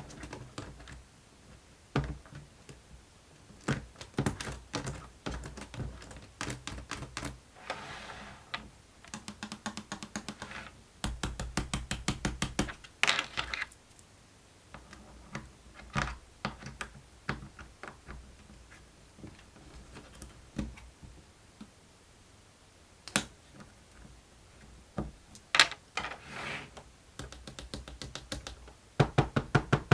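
Small plastic clicks and taps from a fidget board toy being handled, with a few quick rattling runs of clicks about a third of the way in and near the end.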